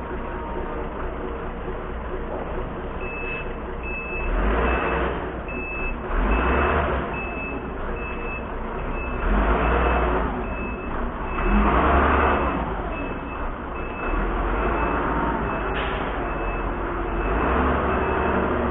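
Kato SR-250 rough-terrain crane's diesel engine running and revving up several times as the crane manoeuvres, while a reversing alarm beeps steadily, about every 0.6 s, from about three seconds in.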